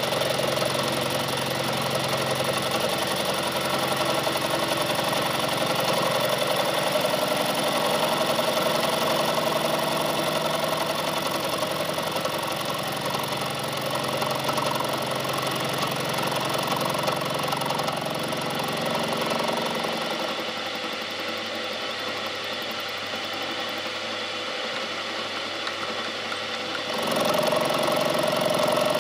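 Milling machine running, its end mill cutting the face of a metal bearing block, a steady machine whine mixed with cutting noise. The sound drops somewhat for several seconds about two-thirds of the way through, then picks up again near the end.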